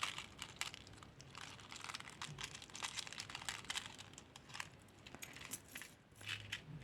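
Jewelry handled close to the microphone for ASMR: a run of small, irregular clicks and rattles, with no speech.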